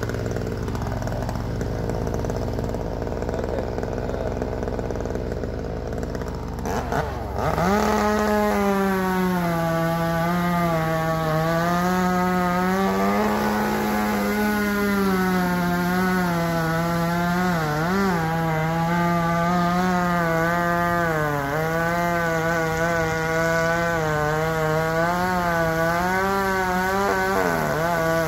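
Gas chainsaw, after a low idle, revs up about seven seconds in and runs at full throttle, cutting. Its pitch sags and recovers several times as the chain bites into the wood, then drops off at the end.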